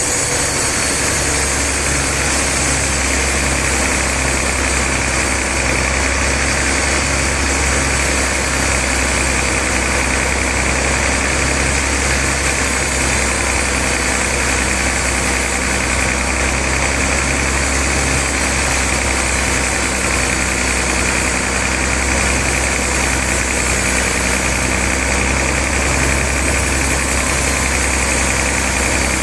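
Sawmill saw machinery running with a steady, unchanging engine-like drone.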